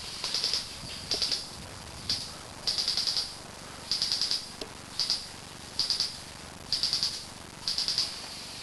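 An insect, cricket-like, chirps in repeated short high-pitched trills, each a fast run of pulses, about one trill a second.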